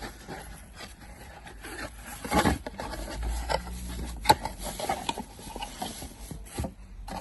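Rustling and scraping of packaging as the new ignition switch is unwrapped and handled, with a few sharp clicks, the loudest about four seconds in.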